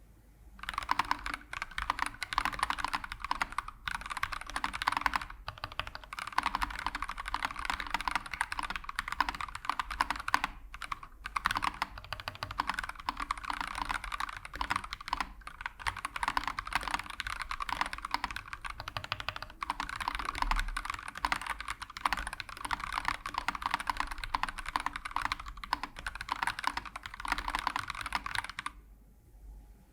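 Continuous typing on an Akko ACR67 stacked-acrylic mechanical keyboard, stock build with Akko CS Starfish linear switches, FR4 plate, ASA low-profile keycaps and plate-mounted stabilisers: rapid, clacky keystrokes with a thin, slightly hollow tone. The typing starts about half a second in and stops about a second before the end.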